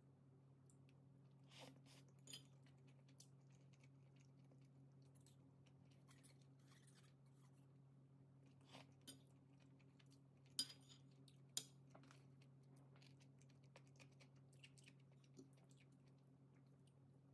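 Near silence: a steady low hum with scattered faint clicks and taps, and two sharper clicks about a second apart a little past the middle.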